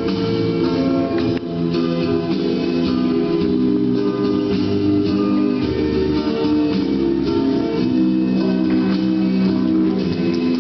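Instrumental music with plucked strings and a steady percussion beat.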